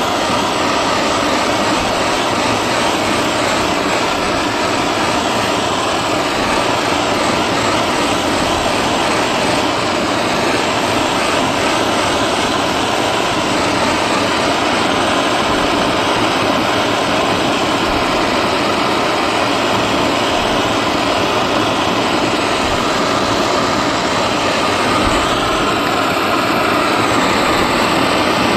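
Hand-held gas torch flame burning with a steady rushing hiss as it heats a sheet-metal tank for soft soldering.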